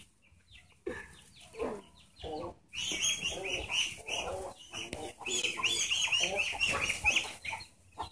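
Chickens clucking and calling over and over, busiest from about three seconds in.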